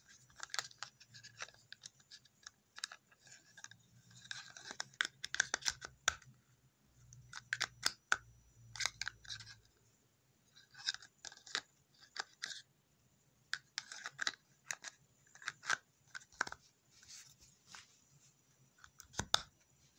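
Trauma shears being handled and put into their belt holster: irregular clicks, scrapes and rustles, with a sharper click near the end.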